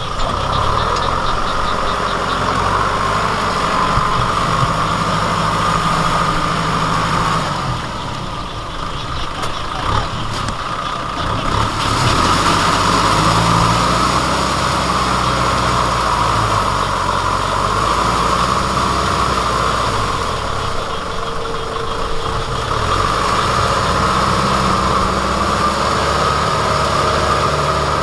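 Kubota M6040SU tractor's diesel engine running steadily under load while driving a rotavator through paddy mud, its pitch shifting slightly a few times, with a steady high whine above it.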